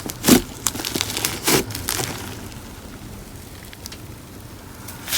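Slime mixed with crumbled paper clay being squeezed and pressed by hand, giving crackling, crunchy squishes. There are two louder squishes in the first two seconds, then only faint scattered clicks until near the end.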